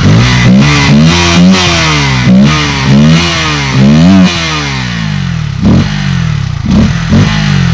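KTM Duke 200's single-cylinder engine being blipped repeatedly, about six quick revs in the first four seconds and two more after a pause, then dropping back to idle. The top cover of the air filter box is off, which gives the intake a deeper, bassy sound.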